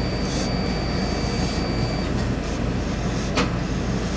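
Hose-fed industrial steam iron pressing a suit jacket: short hisses of steam over a steady machine drone, with a sharper burst a little over three seconds in.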